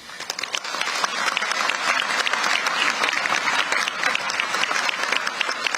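Large audience applauding: many people clapping together, building quickly over the first second and then holding steady.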